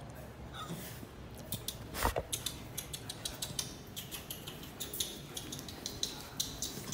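A pitbull puppy's claws clicking and scrabbling on a glazed tile floor as it moves about, in quick irregular taps, with a heavier thump about two seconds in.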